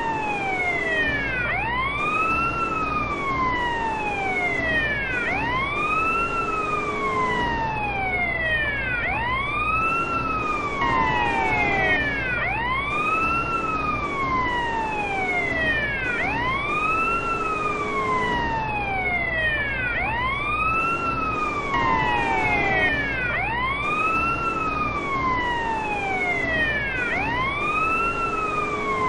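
Bosnian police car siren on the wail setting: a slow rise and fall in pitch that repeats about every three and a half seconds, over a steady low hum.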